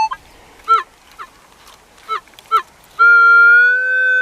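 Minelab CTX 3030 metal detector target tones over a buried target: three short falling chirps as the coil sweeps, then from about three seconds in a loud, steady buzzing tone that holds.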